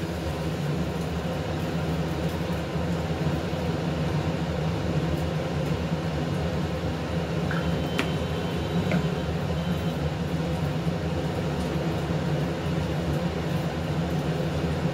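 A steady low motor hum, such as a fan or appliance motor running, with a single sharp click about eight seconds in.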